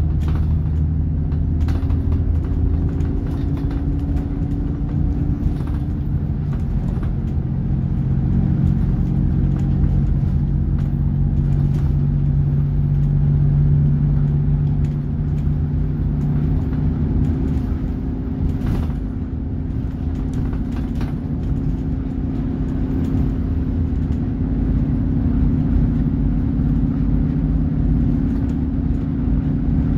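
Alexander Dennis Enviro 400 Trident double-decker bus (Euro 5, Voith automatic gearbox) heard from the upper deck while travelling at speed: a steady engine drone over road rumble, with occasional rattles and clicks from the body and fittings.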